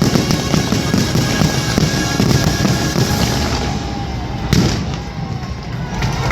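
Fireworks show finale: dense crackling and popping bursts over loud show music, with one sharp loud bang about two-thirds of the way through before the bursts thin out.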